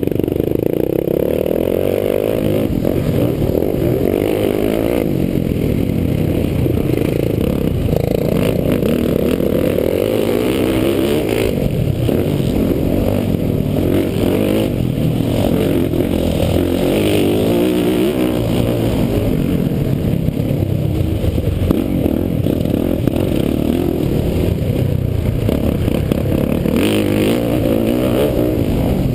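Motocross bike engine, heard close up from a camera mounted on the bike, revving up and down continuously as it accelerates and backs off around the dirt track, with wind rush and occasional knocks.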